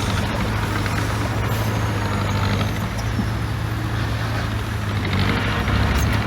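Heavy diesel engine of earthmoving machinery running with a steady low drone, getting a little louder near the end.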